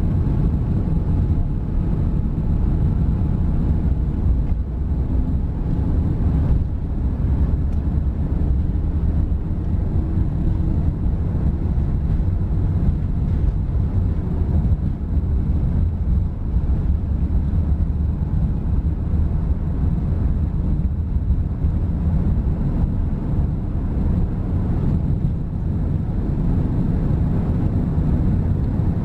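Airbus A380 cabin noise during the takeoff roll: the Rolls-Royce Trent 900 engines running at takeoff thrust with the rumble of the wheels on the runway, a steady loud low roar heard from inside the cabin over the wing.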